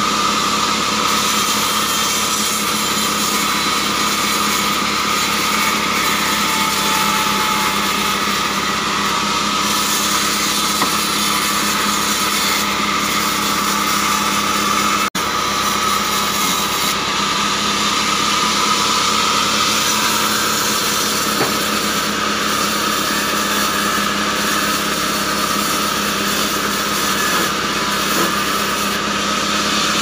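Vertical band sawmill running steadily while acacia wood is fed through it and sawn into boards, a constant machine hum and whine that breaks off for a moment about halfway through.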